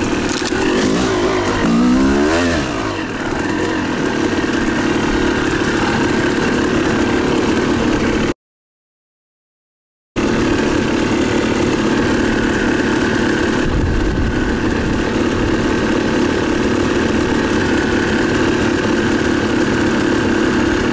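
Two-stroke dirt bike engine revving up and down twice near the start, then running at a steady pitch. The sound drops out completely for about two seconds in the middle.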